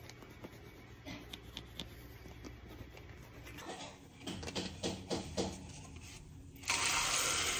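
Toothbrush scrubbing teeth in quick, irregular strokes. Near the end a loud rushing noise starts suddenly and lasts about a second.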